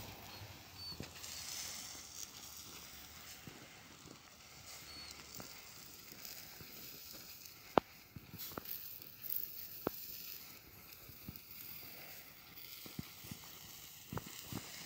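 A cast-iron kazan simmering on a wood-fired stove: a faint steady hiss broken by a few sharp, irregular crackles from the fire, the loudest about eight seconds in.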